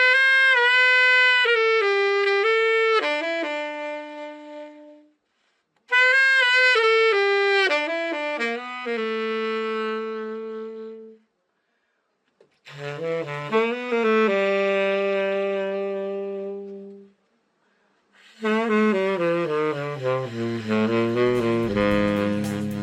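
Yamaha YTS-380 tenor saxophone being test-played after a full overhaul: four short phrases, each ending on a held note, with brief pauses between them. The last phrase runs down into the horn's low register.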